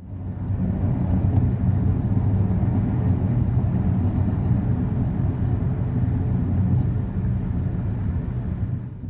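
Onboard noise of a DB class 612 diesel multiple unit running at speed: a steady low drone from the diesel engine mixed with the rumble of the wheels on the rails, rising in over the first second.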